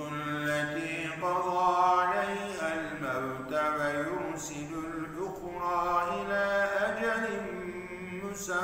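A man's voice reciting the Quran in Arabic in a melodic tajwid chant, holding long drawn-out notes that bend smoothly from pitch to pitch.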